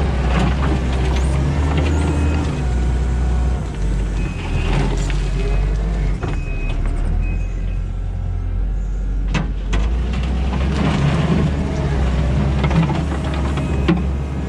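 Kubota SVL90-2 skid steer's diesel engine working under load, its note rising and falling as the tooth bucket is driven up into a pile. A sharp knock comes about nine seconds in and another near the end.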